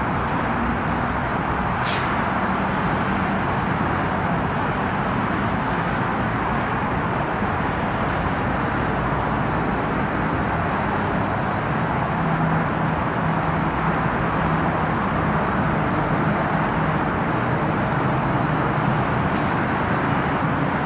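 Steady wash of dense freeway traffic noise, with a brief click about two seconds in.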